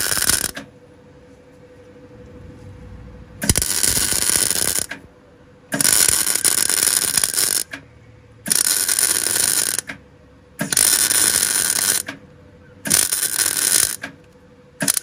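MIG welder arc-welding a steel plate in short runs: about six bursts of one to two seconds each that start and stop abruptly, with brief pauses between.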